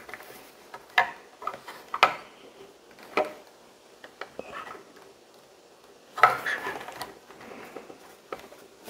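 Plastic LEGO pieces clicking and clattering as they are handled and pressed together, with single sharp clicks about one, two and three seconds in and a longer run of rattling around six seconds in.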